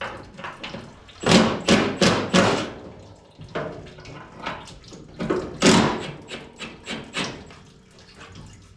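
Irregular run of sharp knocks and clunks from hand work on metal truck parts. The loudest come in a quick cluster about a second in and again past five seconds in.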